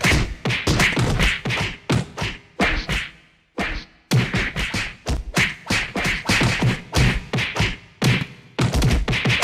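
Fight sound effects: punches and body hits landing in quick succession, a run of sharp whacks and thuds, with a brief pause about three and a half seconds in.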